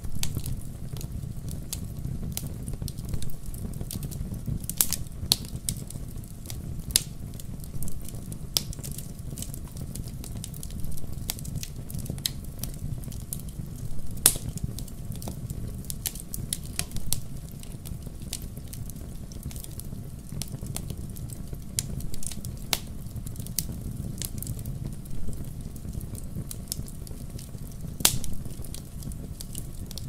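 Wood fire burning in a fireplace: irregular sharp crackles and pops over a low, steady rumble, with a few louder pops along the way.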